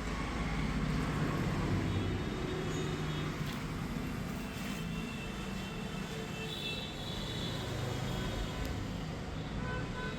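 Steady road-traffic background noise with a low rumble of passing vehicles.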